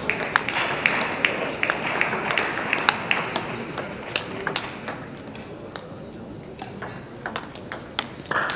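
Table tennis balls clicking sharply off bats and table tops in a fast doubles rally, several irregular clicks a second, with more clicks from neighbouring tables in the hall.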